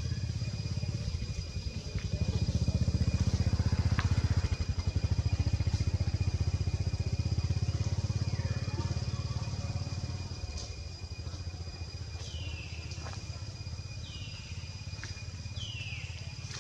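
Low rumble of a passing motor vehicle's engine, swelling a couple of seconds in and fading away after about eight seconds. Near the end come three short high calls, each falling in pitch.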